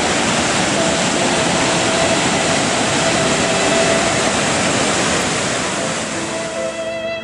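Whitewater of a mountain stream rushing over boulders: a loud, steady rush of water. It fades out near the end as music comes in.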